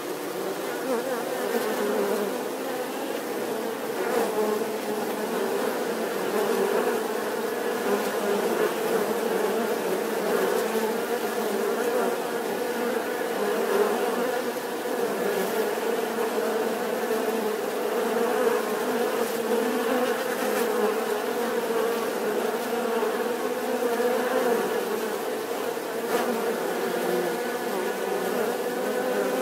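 Many bees buzzing together in a steady, unbroken drone.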